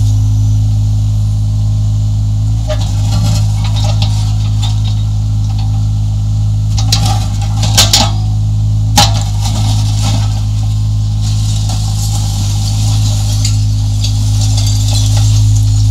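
1.7-ton Yanmar mini excavator's diesel engine running steadily, with broken concrete clattering in and off its bucket several times, most in the middle.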